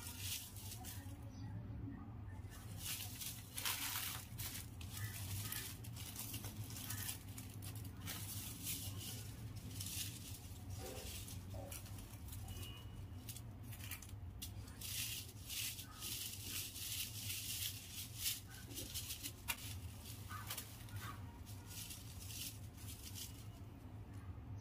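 A handful of snap-pop firecrackers (paper twists filled with grit) rubbed and shuffled between hands, giving an irregular dry rustling and crinkling.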